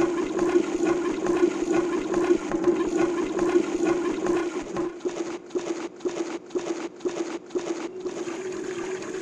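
Water sound effect: a steady rush of running, gurgling water. From about five to eight seconds in it is chopped into pulses about twice a second, then it runs on steadily.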